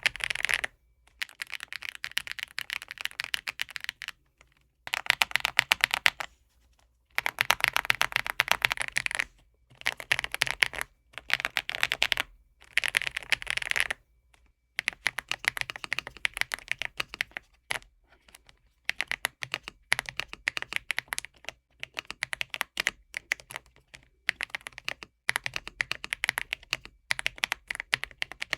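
Typing on a Redragon K745 Pro mechanical keyboard fitted with a cork layer, tape-modded PCB and Cherry-profile keycaps: fast runs of keystrokes in bursts, broken by a few brief pauses.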